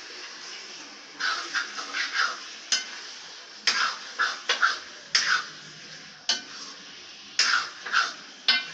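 Raw chicken being mixed by hand into wet masala in a steel kadai: repeated bursts of squishing and scraping, with a sharp metallic click from the steel pan about once a second from around three seconds in.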